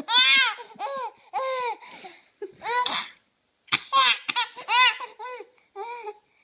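Baby laughing hard in repeated bursts of high-pitched peals, each rising and falling in pitch, with short pauses between. The peals are weaker near the end.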